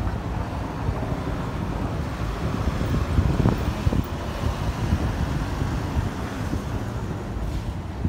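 Street traffic noise: cars passing on the road close by, with wind buffeting the phone's microphone.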